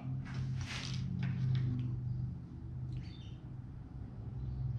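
Small metal lock clips for disc-brake rotor screws being picked up and handled, giving a few faint clicks and light scrapes in the first second and brief faint squeaks about three seconds in, over a steady low hum.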